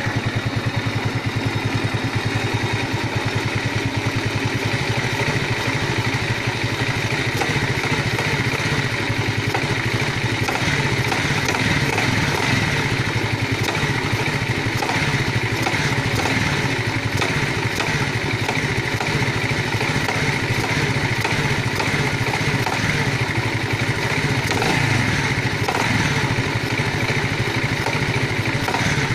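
Engine of an Alpha (Альфа) running steadily, with a knock in the engine that the owner cannot explain and is asking for help with.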